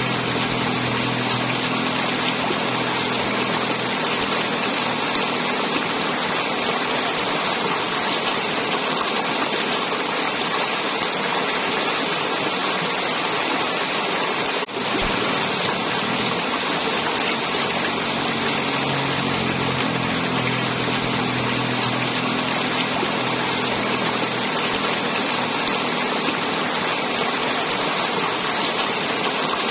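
River water flowing and gurgling in a steady, even rush, with a momentary break in the sound about halfway through.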